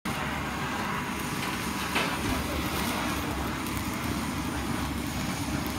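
Handheld butane kitchen torch burning with a steady hissing rush as its flame sears a piece of fish nigiri on a stone slab.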